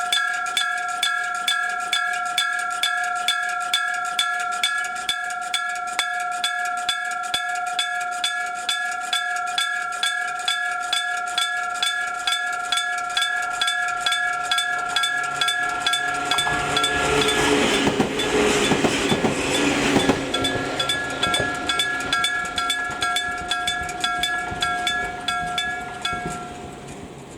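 Old electric-bell level-crossing signal, its bell struck over and over in a steady rhythm with a distinctive ringing tone. About two-thirds of the way through, a train rumbles past over the crossing for several seconds, and near the end the bell stops.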